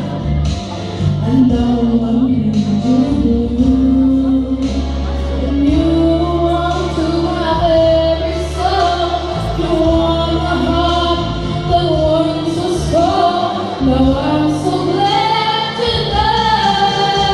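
A woman singing a slow, sustained melody into a microphone, amplified over instrumental accompaniment with a steady bass line.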